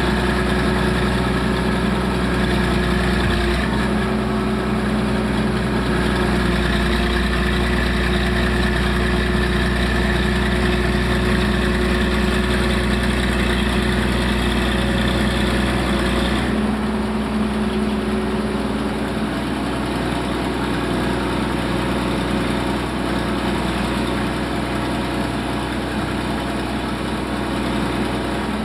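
1974 Poclain SC 150 hydraulic excavator's diesel engine running steadily at a loud, even pitch. About halfway through, the engine note changes and gets slightly quieter, then runs steadily again.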